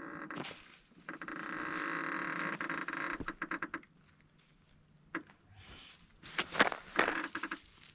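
Spinning fishing reel being cranked in two spells, a steady whirring as line is retrieved, the second spell short and broken by clicks.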